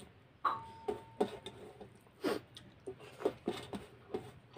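Hand-eating sounds: fingers mixing rice and curry on a steel plate, with irregular soft clicks, taps and squelches, and mouth chewing.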